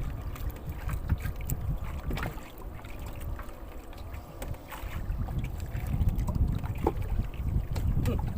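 Wind buffeting the microphone: an uneven low rumble that gusts stronger in the second half, with a few light clicks.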